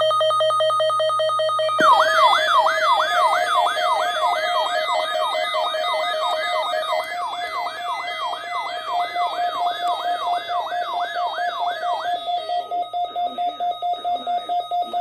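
Several NOAA weather radios sounding their alert alarms together for an EAS Child Abduction Emergency. Steady pulsing beep tones are joined about two seconds in by a fast warbling siren-style alarm, which stops about twelve seconds in and leaves rapid pulsing beeps.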